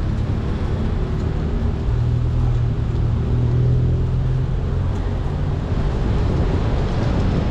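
Steady low rumble of city traffic, with a vehicle engine's hum that swells about two seconds in and then fades.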